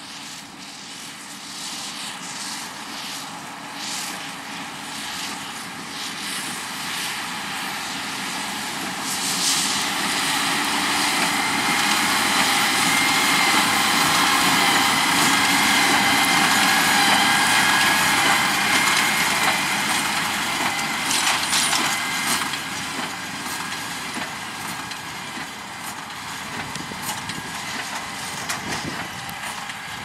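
A John Deere 6250R tractor's six-cylinder diesel engine runs under load, pulling a Case IH LB436 HD large square baler working through straw, with a steady mechanical whine. It grows louder as the outfit passes close, around the middle, then fades as it moves away.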